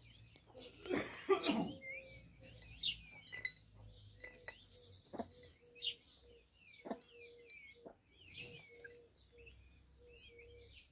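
Peafowl chicks peeping with many short, high chirps while they peck food from a ceramic plate, with sharp clicks among the calls. A louder, noisier burst comes about a second in.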